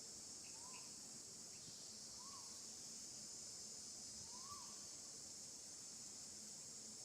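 Faint steady high-pitched drone of insects, crickets or cicadas, with three short rising-and-falling chirps, about one every two seconds, in the first half.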